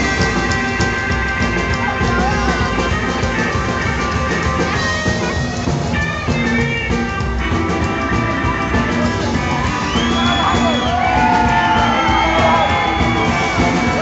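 Live rockabilly band playing an instrumental break, with drum kit and electric guitar driving it and no lead vocal. About halfway through the sound changes and gliding lines come in.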